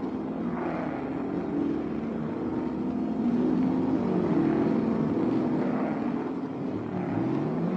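Racing cars' engines running at speed on a circuit, a steady mix of several engine notes, with one climbing in pitch near the end as it accelerates.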